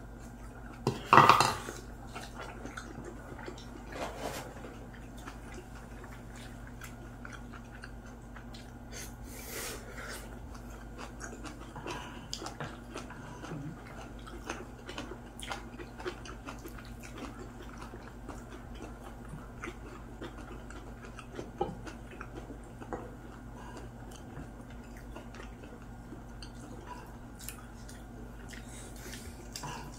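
Chopsticks and tableware clinking and knocking on plates and a pan during a meal, with faint chewing, over a steady low hum. A loud clatter comes about a second in, and small clicks follow throughout.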